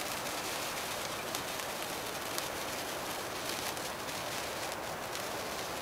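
Gold sparkler burning with a steady crackling hiss and a few faint scattered ticks.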